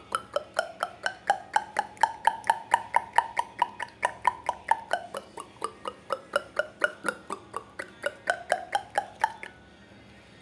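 Beatboxer's mouth-made water-drop sound: a fast series of short plops, about five a second, each sweeping quickly up in pitch like a drip into water, stopping about a second before the end.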